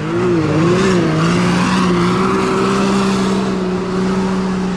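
A vehicle engine running at high, steady revs over a steady hiss; its pitch wavers for the first second and a half, then holds level.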